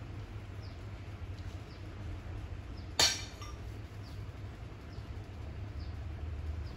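A single sharp clink about three seconds in, ringing briefly, over a steady low hum and faint, high, short chirps repeating every half second or so.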